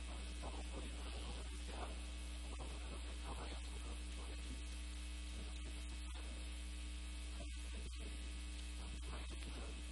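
Steady electrical mains hum. Faint scratching of chalk writing on a chalkboard in the first few seconds.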